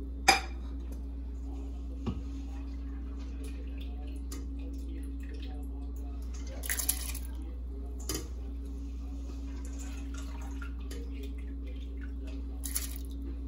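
Ingredients dropped into water in a stainless steel pot: a sharp knock near the start and a few lighter knocks, and short rushing splashes about seven seconds in and again near the end, as red lentils go into the water. A steady low hum runs underneath.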